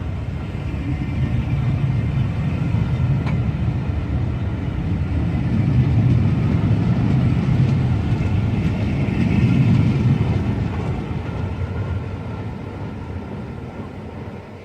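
A Class 47 diesel locomotive's Sulzer twelve-cylinder engine working under power as it pulls a train away. It is a steady low rumble that builds to a peak and then fades over the last few seconds as the train moves off.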